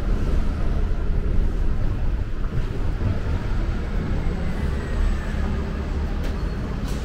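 City street traffic noise: a steady low rumble of vehicles going past, with a faint falling whine about halfway through.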